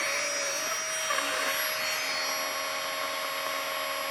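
Flextail battery-powered mini air pump running steadily while it inflates a sleeping pad: a steady, a little loud, high motor whine, with a lower hum joining about a second in.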